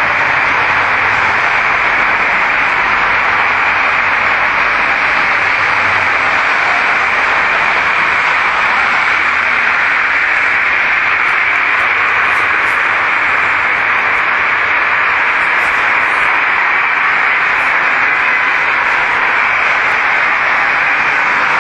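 Steady, even hiss, loudest in the middle of the range, with nothing standing out of it.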